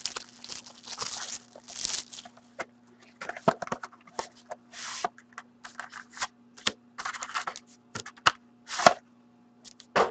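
Plastic shrink-wrap being torn and peeled off a sealed trading-card box, in irregular crinkling rips, with scattered clicks and scrapes of the cardboard box being handled and opened.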